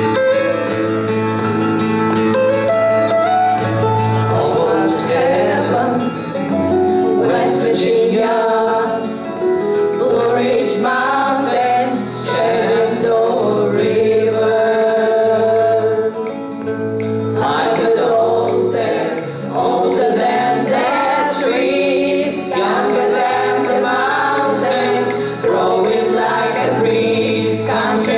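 Group of children singing a country-style song into microphones over a musical accompaniment with a steady bass line.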